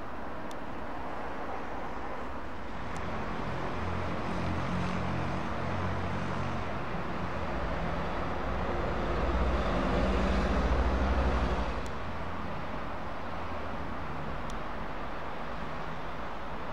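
Heavy diesel trucks driving past, with engine drone and tyre noise over steady road traffic. The engine sound builds from about three seconds in, is loudest around ten to eleven seconds, then drops away suddenly.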